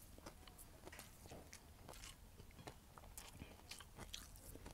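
Faint crunching of someone chewing a mouthful of crispy fried dried fish (daing) with rice: a scatter of small, irregular crisp clicks.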